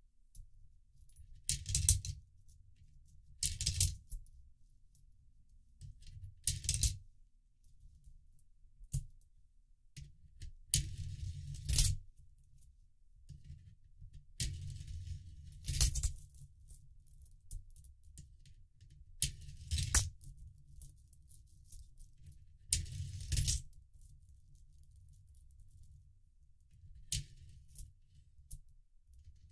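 Euro coins dropped one at a time into a 3D-printed plastic coin sorter, each rattling down the ramp and clinking as it drops into its slot. It happens about nine times, a few seconds apart, with quiet in between.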